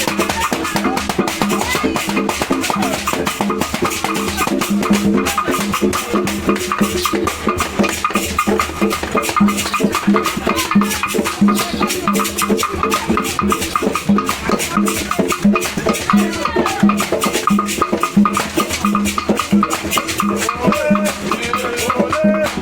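Band music with percussion: a rattling shaker and drums keep a fast, steady beat over sustained held chords.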